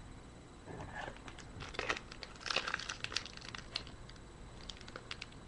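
Faint crinkling and rustling of trading-card packs and cards being handled, with small scattered crackles and ticks between about one and four seconds in.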